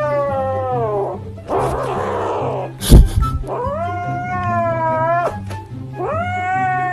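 A cat giving long drawn-out meows, three in all, the first one falling in pitch. There is a breathy noise between the first two calls and a sharp knock about three seconds in, with background music underneath.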